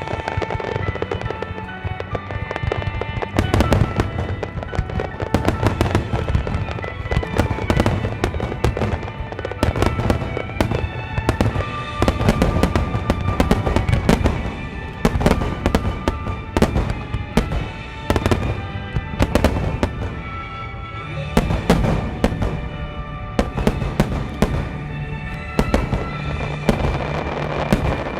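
Wide starmine fireworks barrage: aerial shells bursting in rapid succession, many cracks and booms a second, including crackling senrin (thousand-ring) shells, with a song playing along. The bursts ease briefly about three-quarters through, then pick up again.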